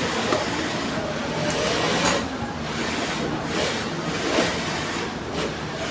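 Industrial sewing machine running: a steady motor hum with stitching noise that swells and fades several times.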